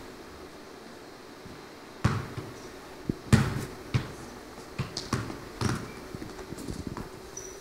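Football being juggled and kicked by a boy doing freestyle tricks, bouncing off his feet and the hard stage floor: a run of irregular thuds that begins about two seconds in, the loudest a quick pair near the middle.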